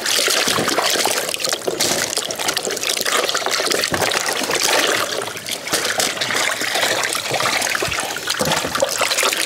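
Water splashing and sloshing in plastic tubs as ash gourds are scrubbed and turned by hand.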